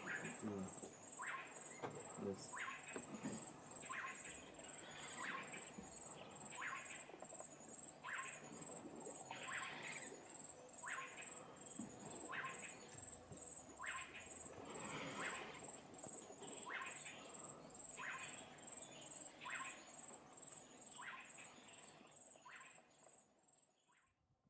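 Faint natural ambience: a steady high insect trill, with a short sharp call repeated roughly every second and a half over it. It fades out near the end.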